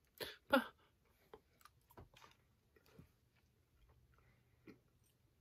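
Mouth sounds of someone chewing a soft, sour-coated chewy candy: two louder wet smacks just after the start, then faint, irregular chewing clicks.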